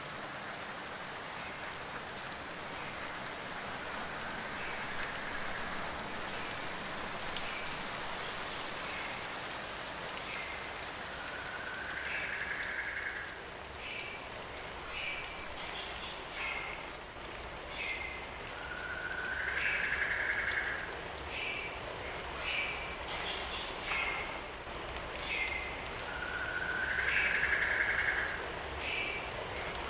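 A car's tyres hissing on a wet road, with a low rumble of the car underneath. Short high chirps come and go, and in the second half a longer rising squeak recurs three times, about seven seconds apart.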